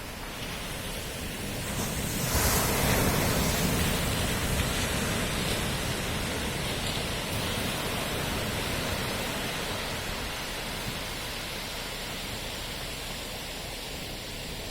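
Sea waves breaking on the shore: one wave crashes about two seconds in, then washes out and fades slowly into the steady hiss of surf.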